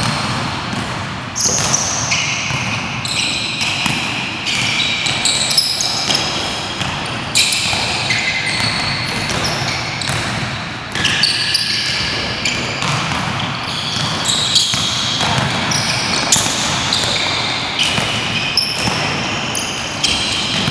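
Basketball game sounds on an indoor hardwood-style court: the ball bouncing and short, high-pitched sneaker squeaks on the floor, repeating throughout.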